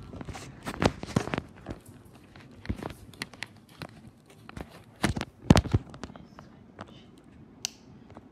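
Wall light switches being clicked in an irregular series of sharp clicks and knocks, mixed with the handling bumps of the phone; the loudest pair falls about five seconds in.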